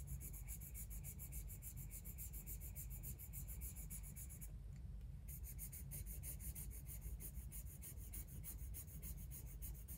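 Coloured pencil rubbing back and forth across paper, a soft, steady scratching as it shades swatches, partly over paper dusted with coloured pencil powder blender, which gives the surface grip.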